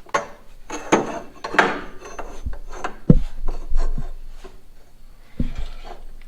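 Metal pieces being handled and test-fitted by hand: irregular scraping and knocking, with dull thumps about three seconds in and again near the end.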